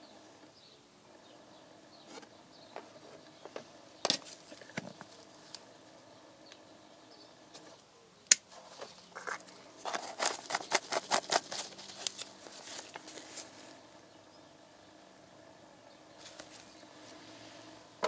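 Engine oil poured from a plastic jug into a plastic cup: scattered clicks and taps of plastic being handled, then a quick run of about a dozen glugs about ten seconds in, over a faint steady hum.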